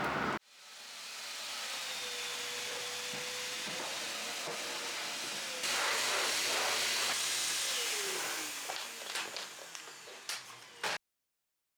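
Steady hissing rush of air or steam that grows louder about halfway through, then fades with scattered light clicks and cuts off near the end.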